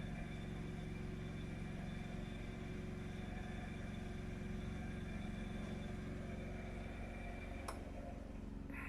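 Steady mechanical hum of a washing machine spinning at 800 rpm in its final spin cycle, powered by a running petrol generator. A faint click comes near the end.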